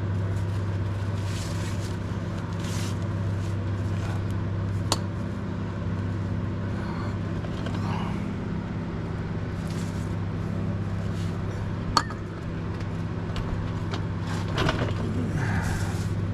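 A steady low mechanical hum throughout, with a couple of sharp clicks or knocks, one about five seconds in and one about twelve seconds in.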